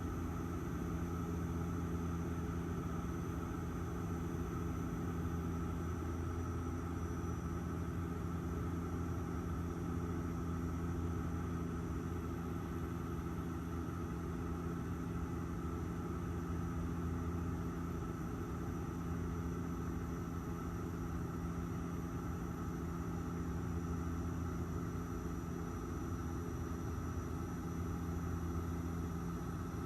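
Airliner cabin noise: a steady drone of engine and airflow with a constant low hum and a few faint steady higher tones.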